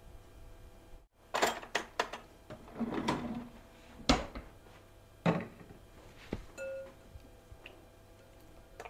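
Kitchen handling sounds: a spoon and spatula knocking and clinking against bowls as cream cheese is worked into a glass mixing bowl. There is a string of separate knocks, the sharpest about four seconds in, then a few lighter clinks and quiet near the end.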